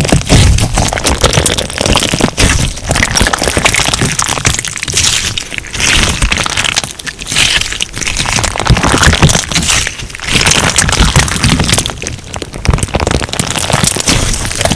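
Crunch slime being squeezed and worked by hand, giving dense, loud crackling and popping that swells and eases with each squeeze.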